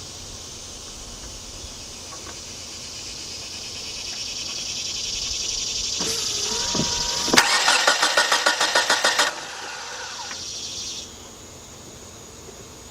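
A few clicks, then the 1993 Nissan Altima's 2.4-litre four-cylinder engine cranking on the starter for about two seconds with a rhythmic beat and stopping suddenly without catching. It cranks but does not start, with no spark showing at the spark tester.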